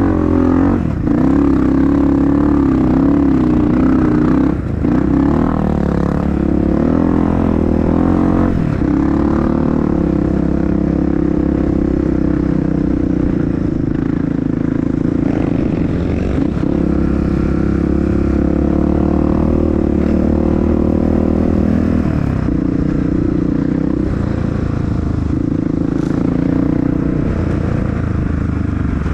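Honda CRF dirt bike's single-cylinder four-stroke engine running on a trail ride, its revs rising and falling for the first nine seconds or so, then holding steadier.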